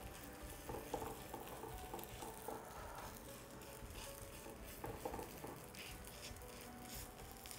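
Faint taps and light scrapes of a steel spatula pressing a sweet poli down on a nonstick tawa, in small clusters of soft clicks, some with a brief metallic ring.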